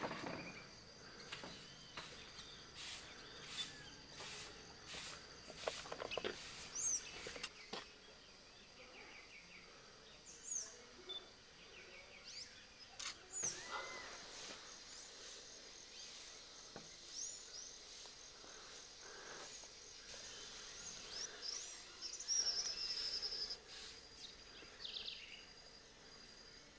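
Outdoor ambience: a steady high-pitched insect drone, with scattered short bird chirps and whistles. There are a few sharp clicks and knocks in the first seconds, and a louder bird call shortly before the end.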